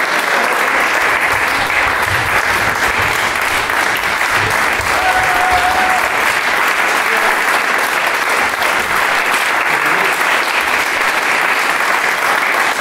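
Audience applauding, with dense steady clapping throughout.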